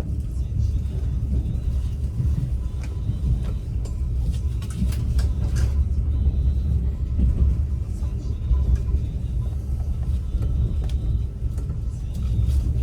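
Steady low rumble of a moving passenger train heard from inside the carriage, with scattered short clicks and rattles from the wheels and car body.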